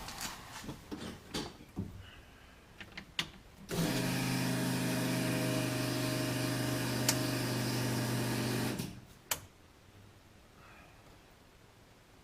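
A small electric motor runs with a steady hum for about five seconds and then stops, between a few clicks of handling.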